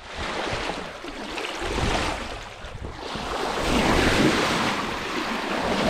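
Sea water rushing and splashing along the hull of a moving sailboat, with wind buffeting the microphone. The rush swells louder about halfway through.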